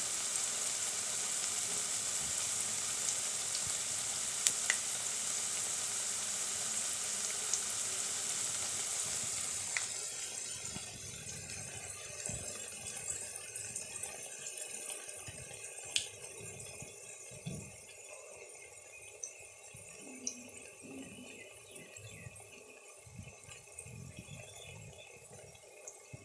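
Onion fritters (pyaji) in gram-flour batter deep-frying in hot oil in a wok, a steady sizzle. About ten seconds in the sizzle drops noticeably and carries on quieter, with scattered pops.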